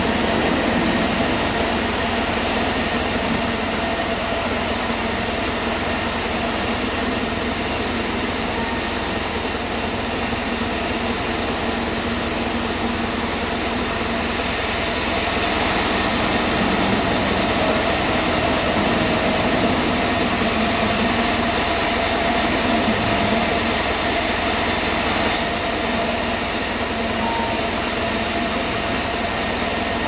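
Log band sawmill running steadily with its blade cutting a sonokeling (Indonesian rosewood) log: a constant mechanical whir with a hiss over it.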